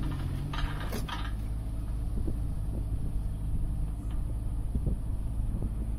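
Mini excavator's diesel engine running steadily as its arm lifts a heavy load, with a short rushing noise about a second in.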